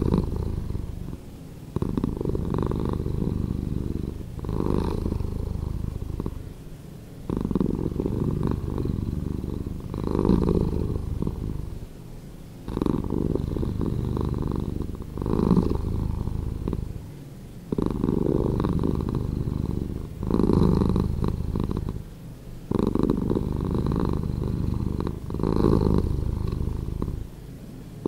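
Domestic cat purring, the recording slowed down, swelling and easing in a regular cycle about every two and a half seconds.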